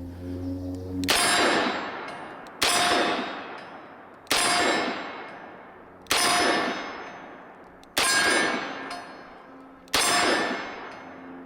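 Six shots from a Smith & Wesson Model 19 six-shot revolver, fired one at a time about a second and a half to two seconds apart. Each shot is followed by a long, ringing decay.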